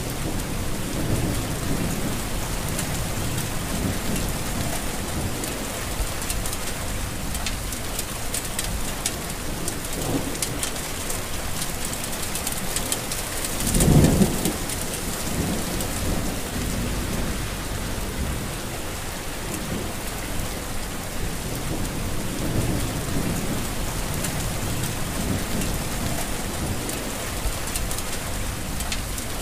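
Heavy rain falling steadily on leaves and surfaces, an even hiss. There are low rumbles now and then, and a short, louder low rumble about halfway through.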